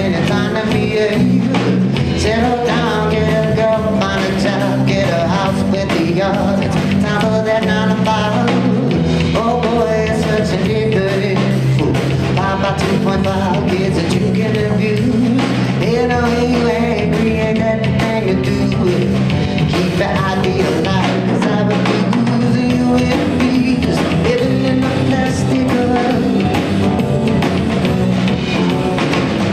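A live band playing a song: drum kit and bass guitar under a sung vocal line.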